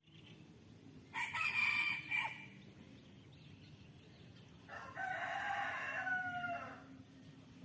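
Rooster crowing twice: a shorter call about a second in, then a longer one about five seconds in that drops in pitch at its end.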